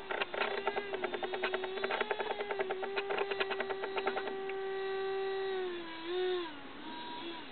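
Electric ducted fan of a model L-39 Albatros jet, run on a 3-cell LiPo, whining at a steady pitch over rapid clicking. Near the end the whine drops in pitch as the fan is throttled back for landing.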